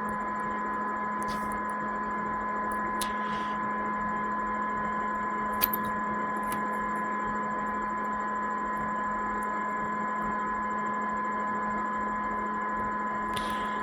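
A steady electrical hum of several even, unchanging tones, with a few faint, scattered clicks over it.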